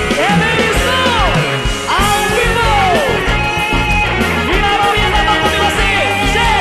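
Forró band playing live: an electric guitar solo of bending, swooping notes over bass and drums.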